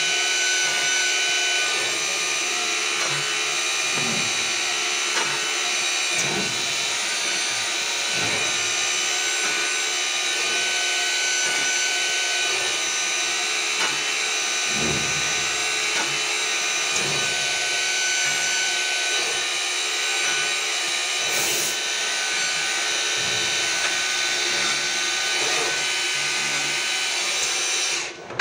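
Holemaster CNC boring machine running: its spindle motors give a steady whine, and the drill bits plunge into the board in short passes every few seconds. Near the end the sound suddenly drops away.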